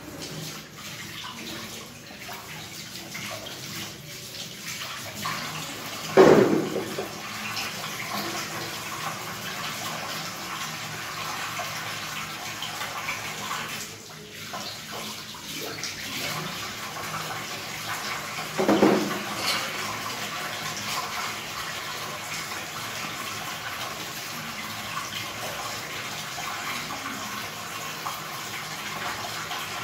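Kitchen tap running a steady stream into a stainless steel sink as dishes and cutlery are rinsed under it by hand. Two brief louder knocks stand out, about six seconds in and again near nineteen seconds.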